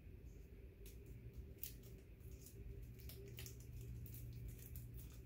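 Faint, irregular crackling and rustling of gift wrapping being pulled and peeled off a small slim package, starting about a second in.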